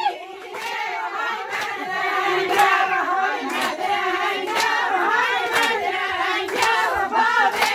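A group of women singing a Kurdish wedding song together, with a sharp handclap about once a second keeping the beat.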